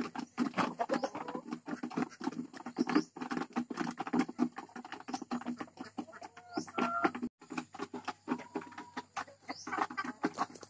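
Hybrid laying hens clucking and calling, the pre-laying calls of hens about to lay, with a dense run of short clicks and rustles throughout.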